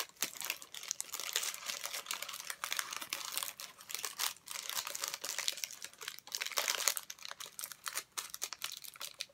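Paper wrapper crinkling as it is unwrapped by hand: a dense, continuous run of small crackles and rustles.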